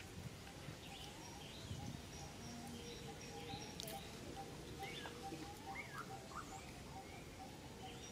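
Faint outdoor ambience with birds chirping: a steady run of short piping notes at one pitch, about three a second, with scattered quick chirps over it and one sharp click near the middle.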